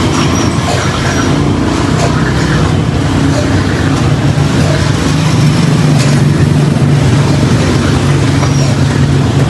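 Motor vehicle engine running steadily with road noise, its low hum growing a little stronger about halfway through.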